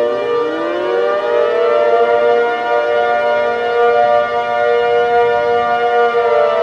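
Emergency alert siren wailing: several overlapping siren tones glide slowly up and down over one another. One tone rises over the first three seconds, holds, and begins to fall near the end.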